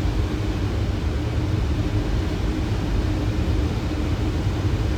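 Steady rush of airflow and engine noise in a Boeing 737 cockpit on final approach, with the landing gear down and flaps at 30. A faint steady hum runs under it.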